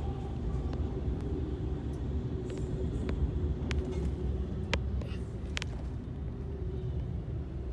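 Double-stack intermodal freight train rolling past a grade crossing, a steady low rumble heard from inside a stopped minivan's cabin, with about three sharp clicks in the middle.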